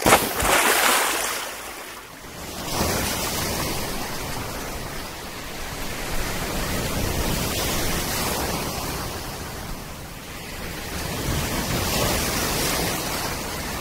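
Sea surf washing and breaking in the shallows, a steady rushing hiss that swells at the start, again about three seconds in and once more near the end.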